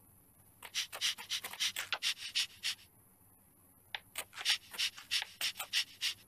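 English bulldog panting in rapid, noisy breaths, in two runs with a pause of about a second between them.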